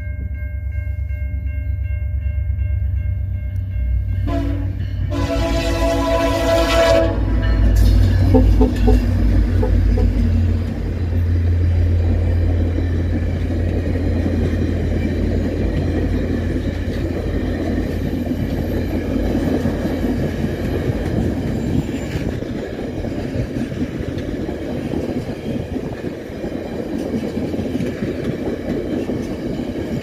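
VIA Rail F40PH-3 diesel locomotives passing close by, sounding their multi-tone horn in a long, very loud blast about four seconds in, with the low rumble of the diesel engines. The passenger cars then roll past with steady wheel-on-rail noise and some clickety-clack over the joints.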